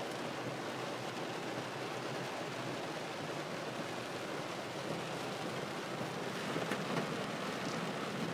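Heavy rain falling steadily, an even dense hiss of rain on surfaces, with a few slightly louder taps late on.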